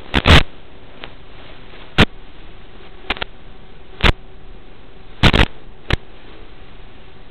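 Steady hiss from an analog FPV video link's audio, broken by about ten sharp crackling pops, some in close pairs, where the radio signal drops out.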